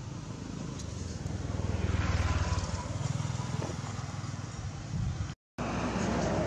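Low outdoor rumble and background noise, broken by a brief dead silence just past five seconds in.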